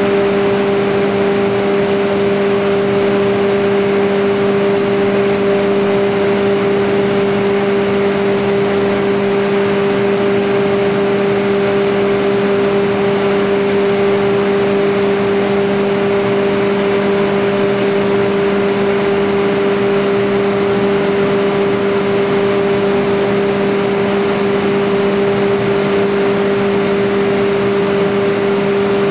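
Machinery of a wood-sawdust pellet production line running: a loud, steady drone with a strong low hum and its higher overtone over a constant mechanical rush.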